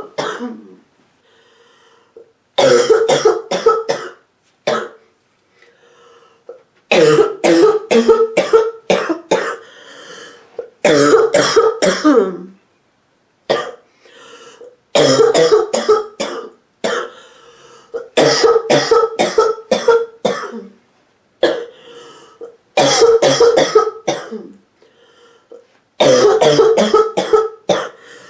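A sick woman coughing in repeated fits, each a run of several deep, barking, hacking coughs, a new fit every few seconds with short pauses for breath between.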